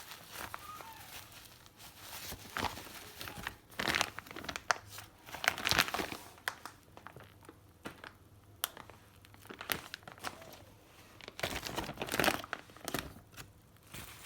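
Plastic diaper packaging crinkling and rustling as it is handled, in irregular bursts that are loudest around the middle and again near the end.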